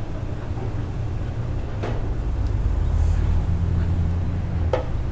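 A low steady rumble that swells for a couple of seconds in the middle, with a few short faint clicks as the loosened oil cooler housing bolt is spun out by hand.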